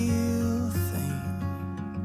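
Instrumental break in a slow love song: sustained chords with some acoustic guitar, no singing.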